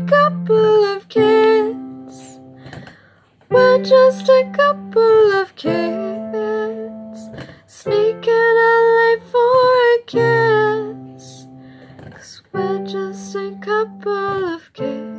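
A woman singing held, wordless notes over strummed guitar chords: four phrases, each opening with a strum and then fading.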